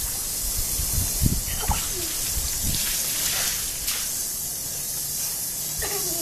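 Steady hissing noise like rushing or spraying water, with a voice faintly heard a couple of times.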